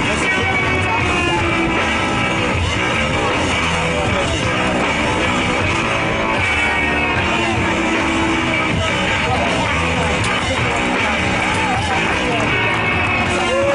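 Rock music with guitar and singing, playing steadily.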